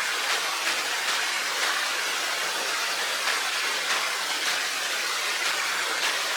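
Steady rush of running water, with small irregular splashes.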